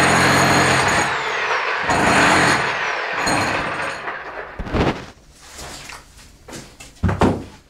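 Electric hammer drill boring into a stone wall, running loud with two brief let-ups. About four seconds in it drops away, leaving only a few sharp knocks, the loudest near the end.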